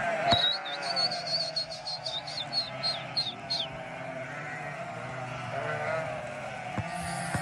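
A flock of sheep bleating, several voices overlapping. A quick run of high chirps sounds over them through the first half.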